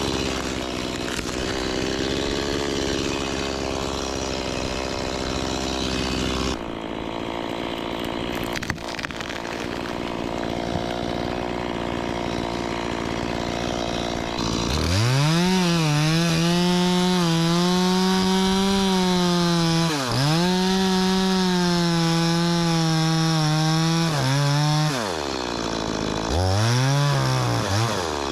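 Two-stroke chainsaw running at part throttle, then revved up to full speed about halfway and held there. Near the end the engine speed drops and picks up again twice.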